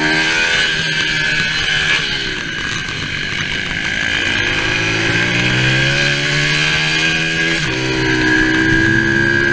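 Symoto 140 pit bike's single-cylinder four-stroke engine heard from on board under hard riding: the revs fall away over the first couple of seconds as the rider backs off for a corner, then rise steadily in pitch as it accelerates out, with a gear change about three-quarters of the way through, after which the revs climb again.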